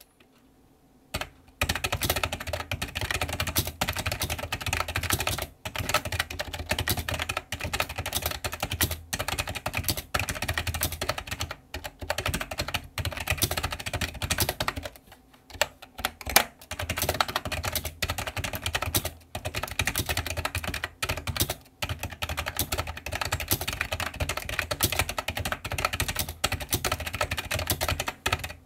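iMAGiC G-Keyboard II Echo plunger keyboard being typed on fast and continuously: rapid key clicks that start about a second and a half in, with short pauses every few seconds.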